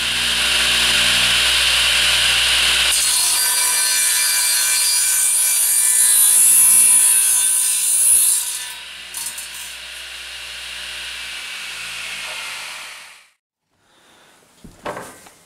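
Electric circular-blade crosscut saw running and cutting across a 10-inch-wide wooden plank. The sound changes as the blade bites into the wood about three seconds in and is loudest near eight seconds. The saw then runs on more quietly and stops abruptly about thirteen seconds in.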